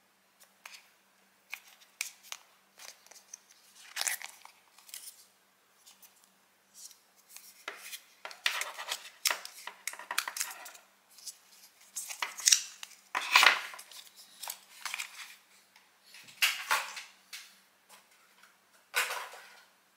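Handling noise from an Apple Thunderbolt 3 cable being worked free of its white packaging tray: irregular clicks, scrapes and rustles as the connectors are pried out of their clips. The loudest scrapes come about two-thirds of the way in.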